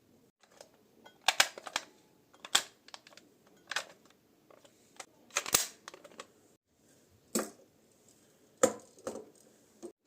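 Sharp plastic clicks and knocks, about eight of them at uneven intervals, from a Kamen Rider Wizard toy belt being handled, with soft handling noise between them.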